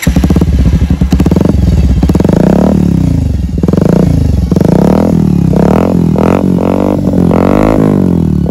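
A Bajaj Pulsar's single-cylinder engine catches right at the start and runs very loud through an aftermarket SC Project exhaust with no dB killer. It is then revved again and again, the pitch rising and falling, with the throttle blips coming quicker, about two a second, near the end.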